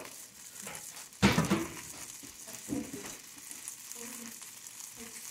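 Rice frying with a steady sizzle in a nonstick skillet, stirred and pressed with a silicone spatula, with one loud thump about a second in.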